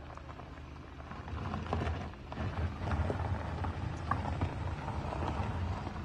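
Volkswagen SUV's engine working hard at low speed as its tyres crunch and scrabble over loose gravel and stones on a steep rutted track. The engine rumble grows louder from about a second in, with many small stone clicks and crackles over it.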